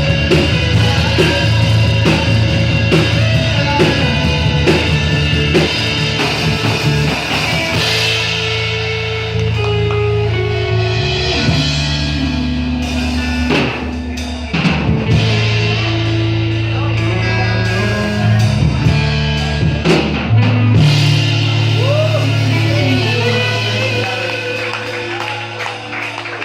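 Live rock band playing: electric guitar, bass and drum kit with a singer, the music dying down near the end.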